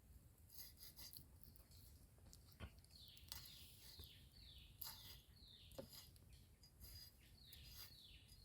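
A bird calling faintly in two runs of short falling whistled notes, about five notes then about three, with scattered light taps.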